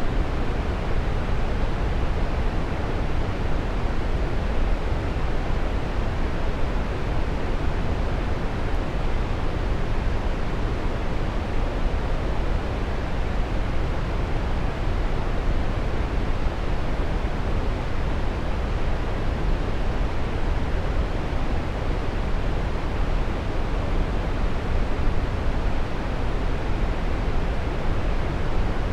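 Waterfall: a steady, even rush of falling water, strongest in the low range, with no breaks or changes.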